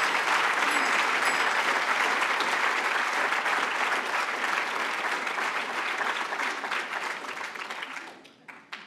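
Large audience applauding, the clapping dying away about eight seconds in, followed by a couple of sharp knocks.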